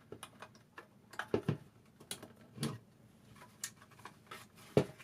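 Irregular clicks and light knocks of plastic parts and a circuit board being handled as the docking station's board is worked out of its plastic casing, the loudest knock just before the end.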